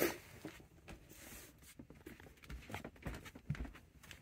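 Bare feet stepping down a truck camper's steps: a brief scuff right at the start, then soft thumps and small clicks as the steps are taken.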